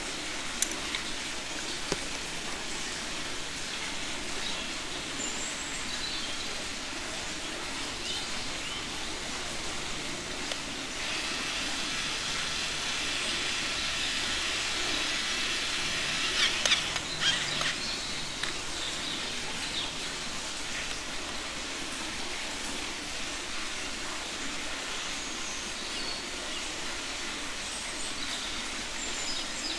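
Red toy screwdriver drill whirring for several seconds from about eleven seconds in as it drives a plastic screw into a toy wheel, with a few sharp plastic clicks near its end. Steady outdoor background noise with faint bird chirps throughout.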